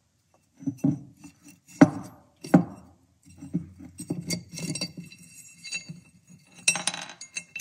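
CVT primary clutch of a CFMOTO CForce 1000 being taken apart by hand: its cover plate clinking and knocking against the aluminium clutch housing. A few sharp knocks come in the first three seconds, then lighter clattering, and a short scraping rustle near the end.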